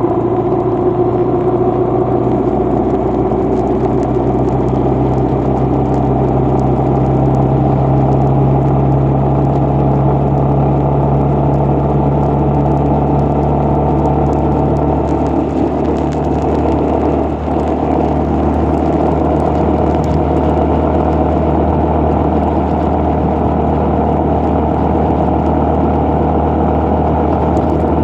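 A vehicle's engine runs steadily under road and driving noise as it travels along the road. The engine note rises a little in the first few seconds and changes about halfway through.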